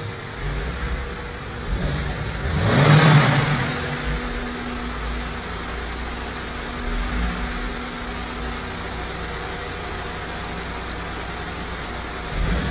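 Three-wheeled car running, with a swell of louder noise about three seconds in, then a steady rumble with a faint even hum.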